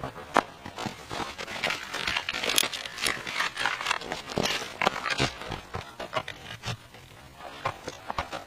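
Irregular rustling and scraping with many sharp clicks, the sound of camping gear or fabric being handled.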